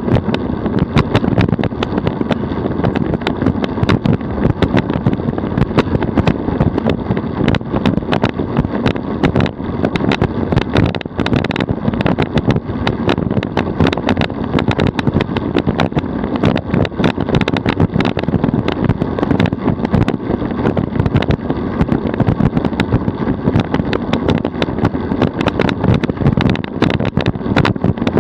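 DF velomobile rolling at about 42 km/h on asphalt: a steady rumble of tyre and road noise carried through the shell, dense with small clicks and rattles.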